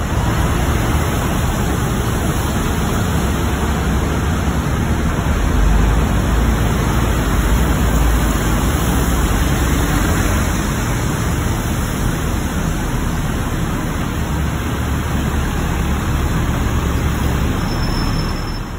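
Double-decker buses running, a steady engine rumble with a heavy low end, a little louder around the middle as a bus moves past close by.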